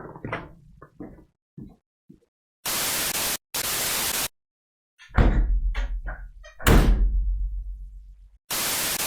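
Two heavy knocks about a second and a half apart, each with a deep boom that dies away, after a few faint taps. Short blocks of steady hiss start and stop abruptly before and after the knocks.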